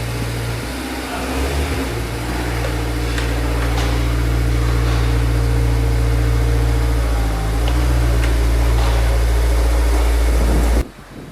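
Honda S2000's four-cylinder engine running at idle, fresh oil just changed, with a slight change in engine pitch about a second in. The sound cuts off suddenly near the end.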